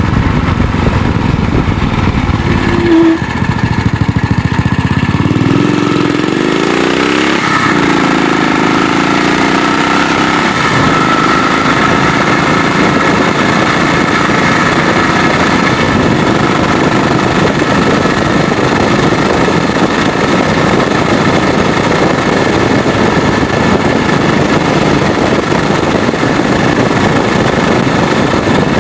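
BSA 441 single-cylinder four-stroke motorcycle engine running under way. Its pitch rises and falls several times in the first ten seconds or so as the revs change, then it settles into a steady note at cruising speed under a constant rush of wind noise.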